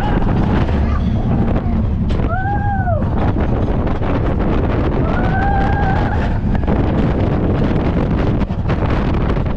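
Wind rushing over the microphone of a moving steel roller coaster train, with the low rumble of the ride underneath. Riders scream twice: a short rising-and-falling scream about two seconds in and a longer one about five seconds in.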